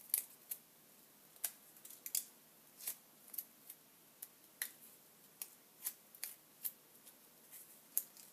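Stiff vellum paper petals crackling as they are pressed and bent into shape with a metal scoring tool: a string of short, sharp crackles at irregular intervals.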